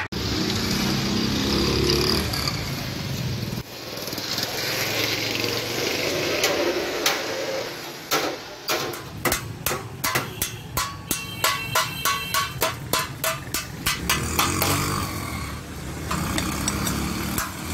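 Hand hammer striking sheet metal: a quick, even run of ringing blows, about three a second, through the second half, with scattered single blows elsewhere. A motor vehicle's engine rumbles steadily at the start and again near the end.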